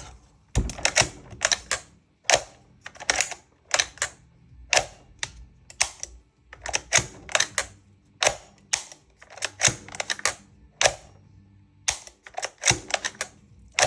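Krytac Kriss Vector gas-blowback airsoft gun, newly fitted with a Bow Master CNC aluminium trigger, being dry-fired to test the trigger: a run of sharp mechanical clicks, roughly two a second, often in quick pairs.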